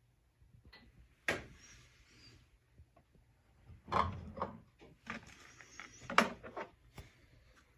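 A few sharp knocks and clatters with rustling between them, the loudest a little after one second, around four seconds and about six seconds in.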